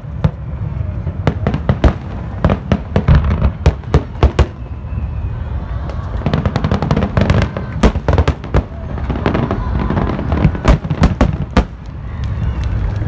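Fireworks display: aerial shells bursting in quick succession with sharp bangs and crackling over a constant low rumble. The bangs come in clusters, thickest from about six to nine seconds in and again near eleven seconds.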